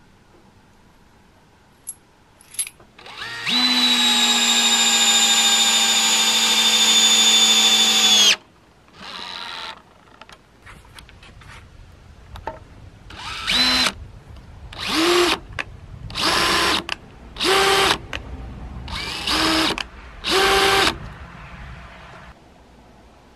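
Cordless drill-driver driving a screw into wood: a couple of clicks, one long steady run of about five seconds, then about six short trigger pulls of half a second each as the screw is seated flush.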